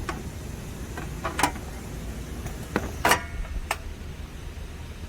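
A few short metallic knocks and clanks as a metal unit case is fitted onto its back panel. The loudest comes about three seconds in and rings briefly.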